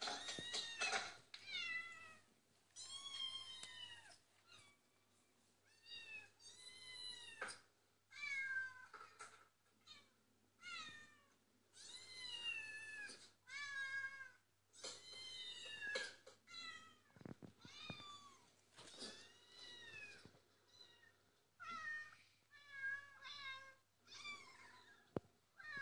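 A cat meowing over and over, each call rising and then falling in pitch, in bouts with short pauses, played from a YouTube cat video through a laptop speaker.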